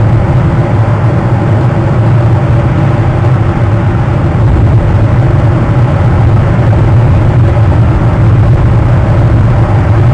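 Steady, loud low-pitched mechanical drone with a constant hum, unchanging throughout.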